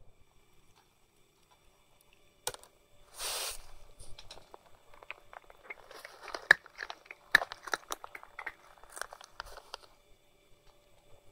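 A tabby cat crunching and chewing dry food, a rapid irregular run of sharp crunches. A brief rustle comes shortly before the chewing starts.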